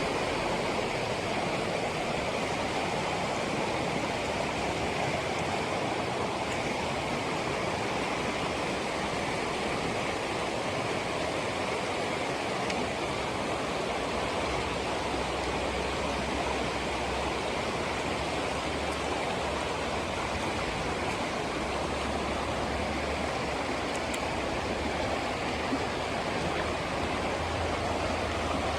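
Mountain river rushing over rocks: a steady, even roar of flowing water.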